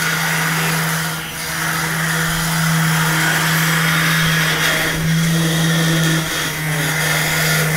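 Woodshop machinery running: a steady low hum under an even hiss, with a brief dip in level about a second in.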